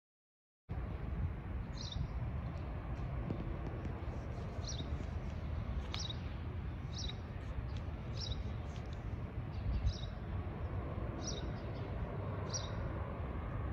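Silent for the first moment, then a small bird chirps over and over, a short high chirp about once a second, above a steady low outdoor rumble.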